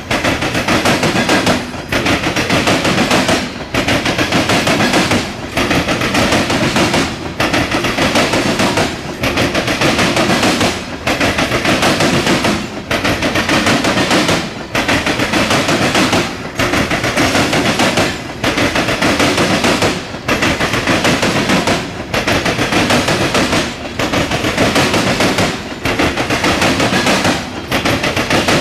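Norfolk Southern grain train of covered hopper cars passing close by: steel wheels clacking rapidly over the rails in a loud burst for each car, with a short lull about every two seconds between cars.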